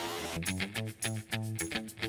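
Background music: a run of short, pitched notes in a steady rhythm.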